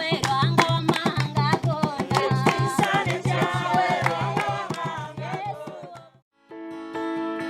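Music: singing over a quick, steady hand-drum beat that fades out about six seconds in, a brief gap, then held notes as another piece of music begins.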